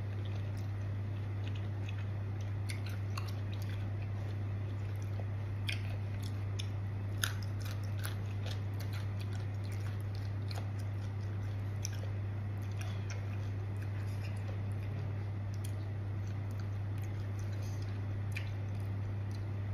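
Close-up chewing and small wet, crunchy mouth clicks of a person eating a spicy pounded santol and fresh-shrimp salad. A steady low electrical hum runs underneath.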